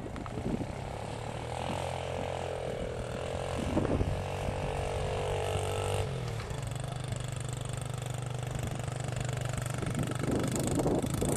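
Honda XR70 dirt bike's small four-stroke single-cylinder engine running at steady part throttle as it tows a sled over snow. Its note wavers a little, then shifts abruptly about six seconds in.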